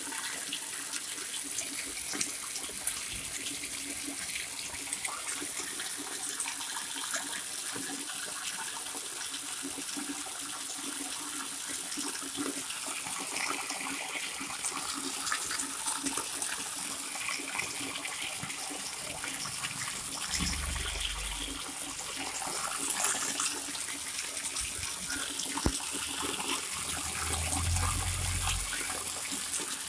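Water pouring steadily from a spout (pancuran) and splashing, a continuous even rush. Low rumbles come in briefly about two-thirds of the way through and again near the end.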